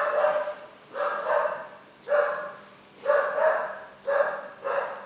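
A dog barking over and over, about once a second, with six barks in a row.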